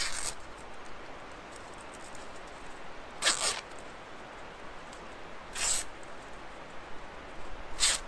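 Four short, sharp scraping strokes of a knife worked by hand, roughly two to three seconds apart, over a faint steady hiss.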